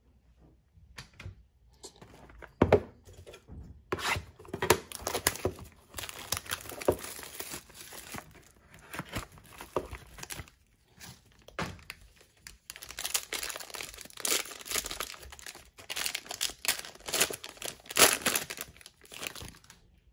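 Foil wrapper of a trading card pack being torn open and crinkled by hand: irregular crackling and sharp snaps that start about two seconds in and go on in bursts with short pauses.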